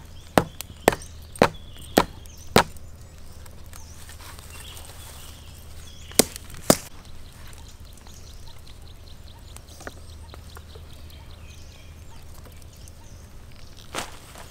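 Sharp wooden knocks of a bamboo stake being pounded into the ground: six strikes about half a second apart, then two more about six seconds in, and a softer knock near the end.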